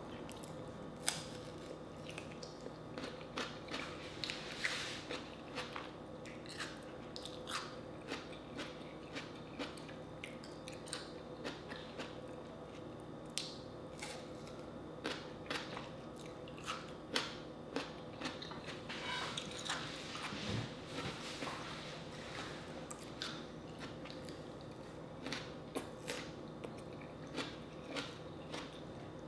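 Close-miked biting and chewing of a slice of raw green tomato: crisp bites followed by many sharp, wet chewing clicks at an uneven pace.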